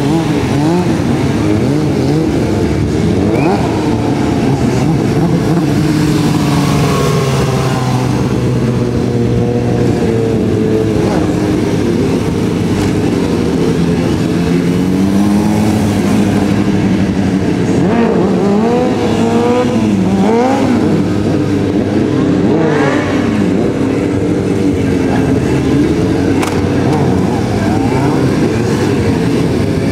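Several sport motorcycles revving hard during stunt riding, their engine notes rising and falling without a break as the riders throttle through wheelies and stoppies.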